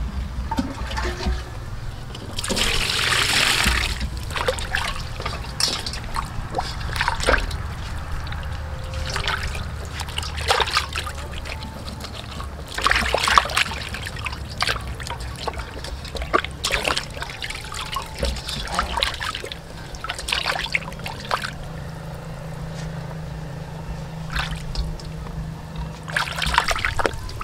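Water sloshing and splashing in a stainless steel bowl as hands wash a whole raw fish in it, with a few louder splashes.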